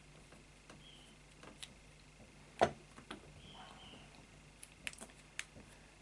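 Scattered light clicks and knocks from a Rolson combination bike lock being handled as its shackle is pulled taut and its number dials are turned, with one sharper click about two and a half seconds in.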